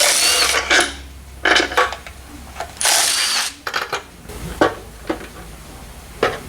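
A power tool runs in two short bursts about three seconds apart, with metal parts clinking between and after them, as bolts are run out of the engine's valley pan.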